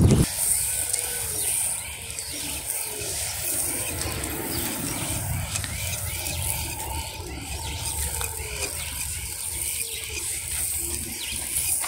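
Birds chirping and calling, many short calls overlapping, as grain is scattered for them.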